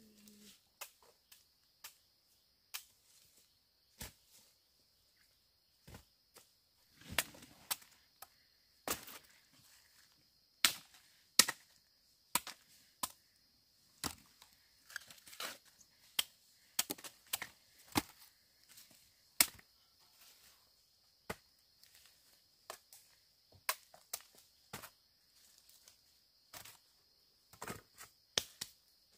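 A series of sharp, irregular knocks or chopping strikes, about one to three a second, some much louder than others, over a faint steady high hiss.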